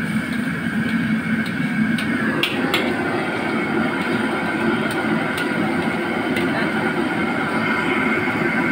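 Commercial gas wok stove running with a steady rushing drone, with a few sharp clicks of a metal spatula against the steel wok as it is stirred.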